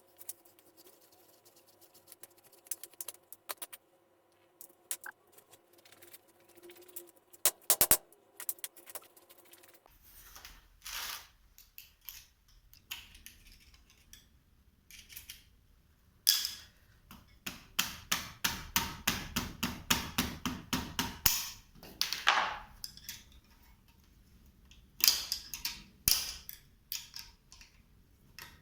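Hand tools clicking, clinking and knocking on metal parts, in scattered strokes with a fast run of evenly repeated clicks about halfway through.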